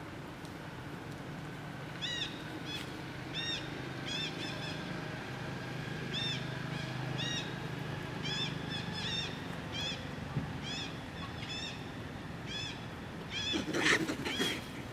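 Macaques: a juvenile gives short, high squeaks, one or two a second, while an adult wrestles it. Just before the end there is a louder, harsher scream as the two break into a chase.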